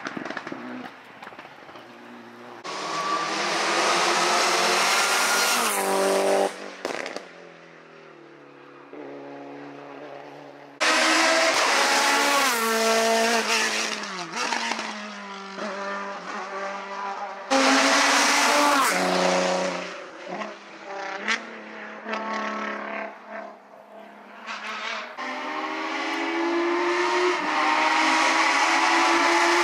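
Hill-climb race car engines at full throttle as the cars come up the road, the pitch rising and then stepping down at each gear change. The engine sound comes in several loud surges with quieter stretches between them.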